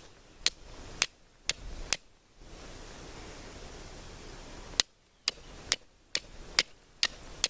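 Knife struck against a flint to throw sparks onto char cloth for a fire. Sharp clicks come about two a second: five strikes, a pause of a couple of seconds, then another run of about seven.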